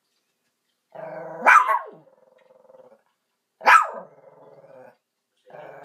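Shih Tzu growling low and steadily, broken by two sharp barks about two seconds apart, the first about a second and a half in and the second near four seconds.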